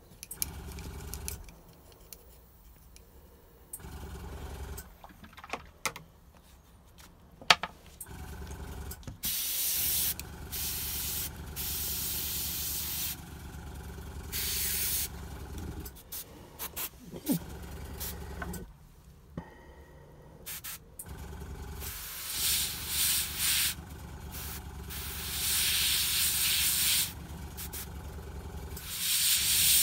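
Airbrush spraying paint in long hissing bursts, starting about nine seconds in, again from about twenty-two seconds and once more near the end, with a low compressor hum starting and stopping underneath. Before the spraying there are a few light handling clicks.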